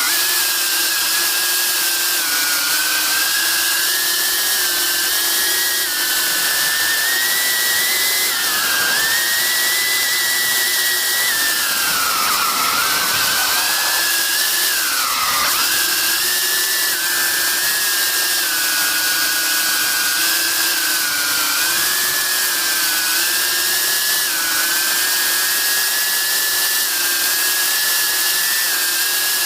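Small FPV quadcopter's brushless motors and propellers whining steadily, heard from a camera mounted on the drone. The pitch wavers with the throttle and drops twice about halfway through as the throttle is eased off.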